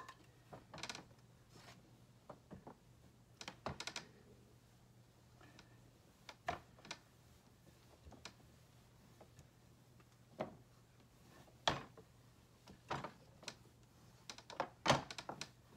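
Rolling pin rolling out a slab of clay between thickness guides on a table: irregular light knocks and clicks as the pin and guides shift against the tabletop.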